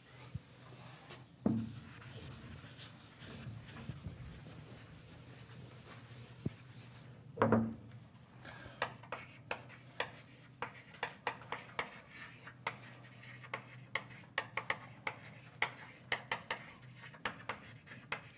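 Writing on a lecture board: a dense run of short scratching strokes and taps through the second half, after two dull thumps.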